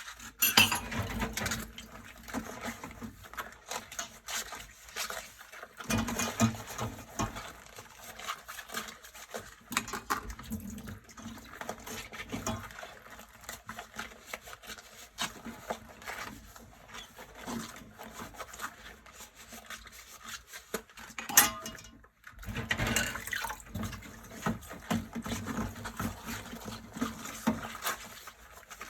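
Dishes washed by hand in rubber gloves at a sink: dishes and cutlery clinking and scraping, with water and scrubbing. A short squeak comes about three quarters of the way through, followed by a brief pause.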